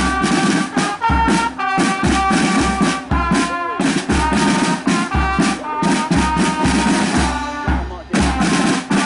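A marching band of brass horns and drums playing: a brass melody of held notes over regular bass drum beats, falling in pairs about once a second, with snare drums rattling between them.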